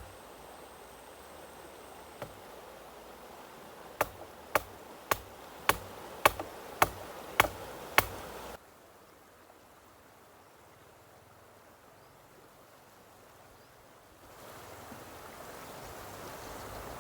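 A run of about eight sharp knocks at an even pace, nearly two a second, over a steady background hiss; the hiss drops off abruptly about halfway through and comes back louder near the end.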